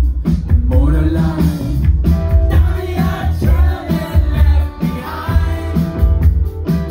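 Live rock band performing: a male lead singer sings over electric guitar, keyboards and a heavy bass and drum beat.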